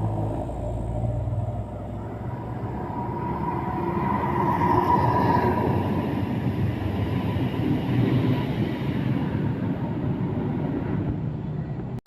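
Bus diesel engine running with road rumble as a bus drives by, swelling gently in the middle and easing off toward the end; no horn melody sounds.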